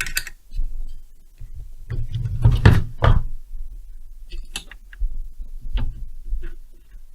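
Irregular knocks and clicks of hand tools being handled and set down on a workbench, with a cluster of heavier thumps a couple of seconds in and lighter sharp clicks later.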